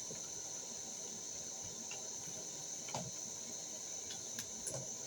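Crickets trilling steadily in a high, unbroken band, with a few faint clicks about three seconds in and near the end.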